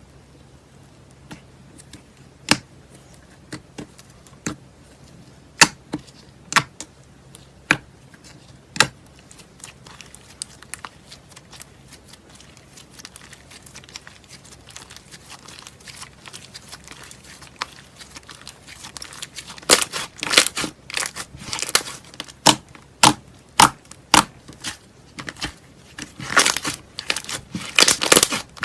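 Slime being squeezed and played with by hand: sharp wet pops and clicks, a second or so apart at first, then a dense run of crackling pops from about two-thirds of the way through.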